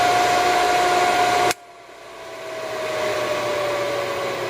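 DAREX V390 drill sharpener's motor running with a steady whine, then switched off about a second and a half in: the sound drops at once and a fainter tone slowly falls in pitch as the motor coasts down. The motor only starts when the machine is lifted, which the owner takes for a defective motor or bearing.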